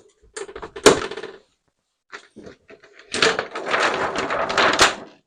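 Thin plastic reflector sheet from an LCD TV backlight being pulled off and handled: a few clicks and a sharp knock about a second in, then a couple of seconds of dense crinkling and rustling.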